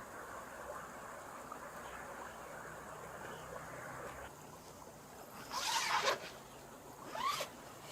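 Forest stream flowing steadily for about the first four seconds, then fading back. About five and a half seconds in comes a louder short rasping sound, and just after seven seconds a briefer sound with a quick rise and fall in pitch.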